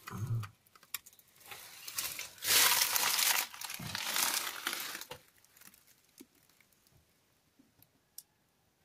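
Dry leaf litter crunching and rustling underfoot in irregular bursts, loudest about a third of the way in, then fading to quiet with a few faint clicks.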